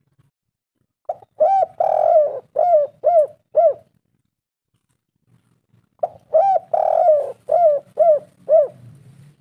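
Spotted dove (tekukur) cooing in two phrases, each of about six short arched coos with a longer, rougher third note. The second phrase starts about two seconds after the first one ends.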